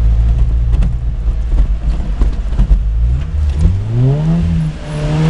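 Suzuki Samurai's four-cylinder engine heard from inside the cab while driving off-road, with scattered knocks and rattles. About three seconds in the engine revs up, dips briefly near the end, then climbs again.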